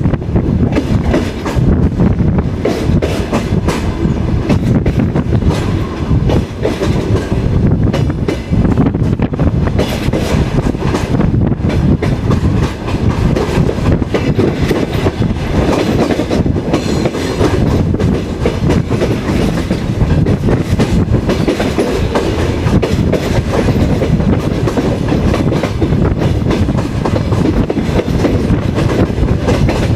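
Rumble and clatter of a moving passenger train's wheels on the track, heard through the open carriage window, with many short knocks from the rail joints and buffeting on the microphone.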